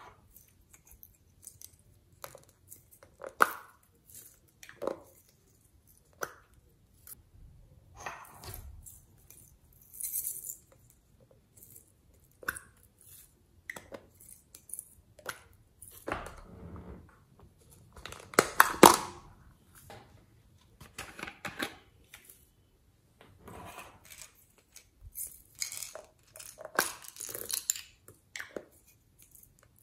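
Hollow plastic toy capsule balls handled and pulled apart into halves: scattered plastic clicks, taps and short rustles, loudest in a cluster about two-thirds of the way in.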